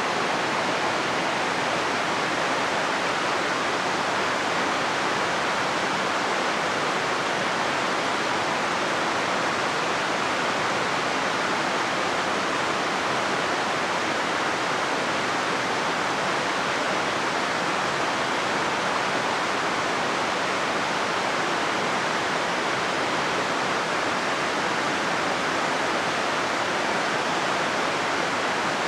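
Steady rushing of a fast-flowing river, an even wash of water noise with no bird calls over it.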